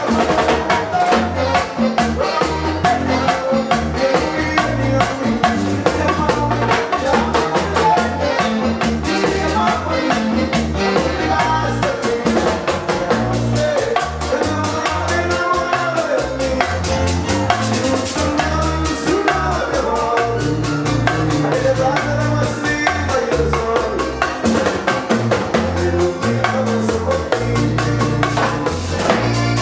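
Live Latin dance band playing: a male lead vocal over a steady, driving beat of drums and congas with bass and keyboard.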